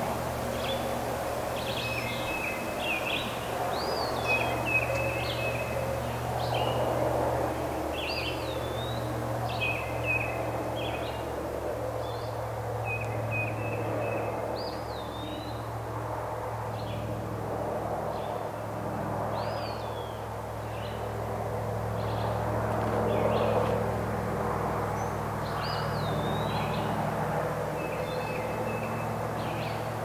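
Songbirds singing in spring woodland: many short chirping and whistled phrases, repeated all the way through, over a steady low hum.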